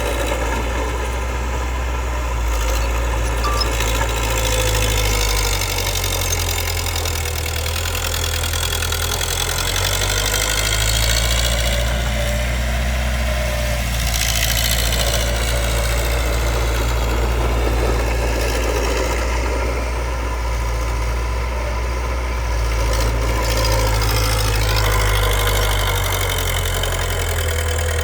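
Diesel engine of a Komatsu D20P bulldozer running steadily while working, its engine speed rising and falling a little about halfway through and again near the end.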